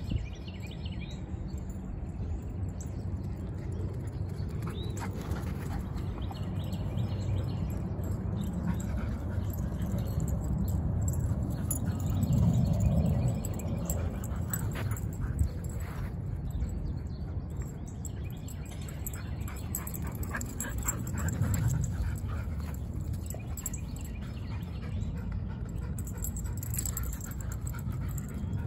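Two dogs, a border collie and a dark brown Labrador-type dog, moving about and breathing close by while fetching tennis balls, over a steady low rumble.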